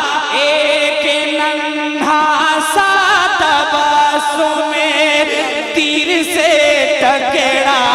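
A man singing an Urdu manqabat (devotional poem) solo into a microphone, drawing out long, wavering held notes that shift pitch a few times.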